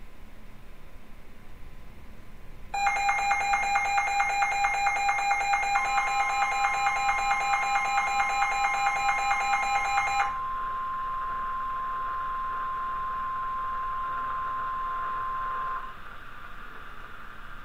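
NOAA weather radio alerting to a Severe Thunderstorm Warning. After a few seconds of faint radio hiss, its loud pulsing alert beep starts, about four or five beeps a second for roughly seven seconds. Partway through, the steady warning alarm tone of the broadcast comes in and continues alone for about five seconds after the beeping stops, then cuts off.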